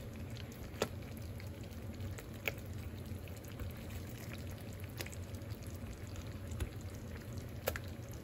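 Cream sauce simmering in a skillet while a plastic spoon scoops and ladles it over chicken breasts, with a few small sharp clicks. A steady low hum runs underneath.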